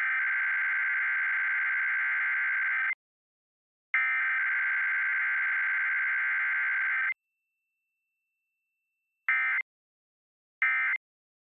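Emergency Alert System SAME header being sent as data tones: two long bursts of rapid two-tone digital warbling, about three seconds each and a second apart. After a gap of about two seconds come two short end-of-message bursts, closing a Required Weekly Test.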